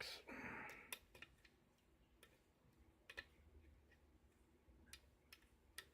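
Faint, scattered clicks of a lock pick working the pin stack of an Arrow key-in-knob lock cylinder, pins clicking as the pick moves past them, after a short hiss in the first second.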